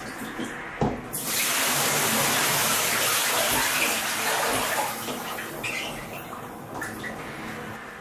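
A knock, then water running and splashing, starting suddenly about a second in, loud for about four seconds and then tapering off.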